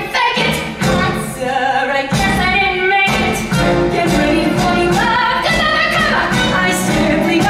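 A woman singing a Broadway show tune over instrumental accompaniment, holding long notes in the second half.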